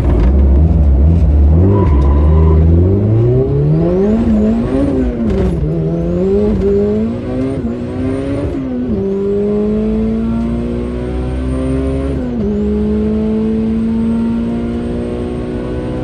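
Turbocharged Honda GSR (B18C) four-cylinder in a Civic hatchback launching down the drag strip. After a low steady idle the revs climb and flare up and down several times as the street tires spin, then the car pulls through two gear shifts, about nine and twelve seconds in. A thin turbo whistle rises and falls with the revs.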